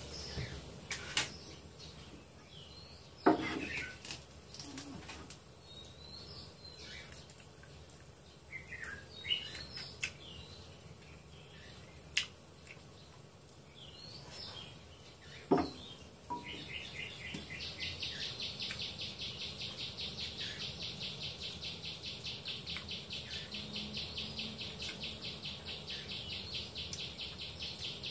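Birds chirping now and then outside, with a few sharp clinks of tableware as someone eats. About halfway through, a fast, even, pulsing insect chirr starts and carries on steadily.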